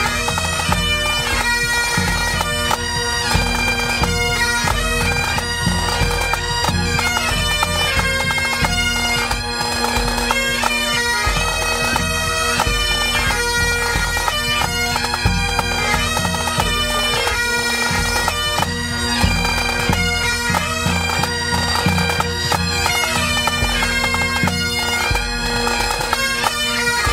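Pipe band playing: Great Highland bagpipes with a steady drone under the chanter melody, backed by bass and tenor drums beating time.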